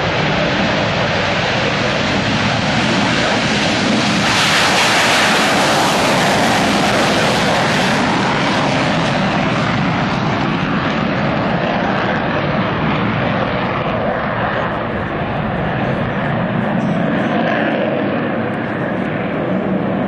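McDonnell Douglas F-15 Eagle's twin jet engines on a low flyby: loud, steady jet noise that is at its loudest and hissiest about four to eight seconds in. It then slowly recedes as the high hiss fades away.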